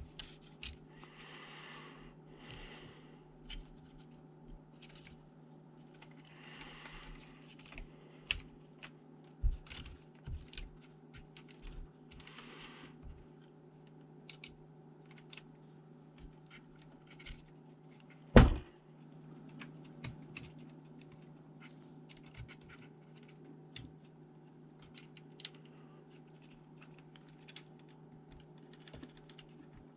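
Scattered small clicks and taps of laptop parts being handled, with a few short scraping or brushing sounds in the first half and one loud knock about 18 seconds in, over a steady low hum.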